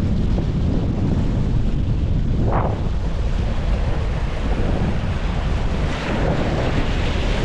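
Strong wind buffeting the microphone, a steady low rumble, with waves washing in underneath.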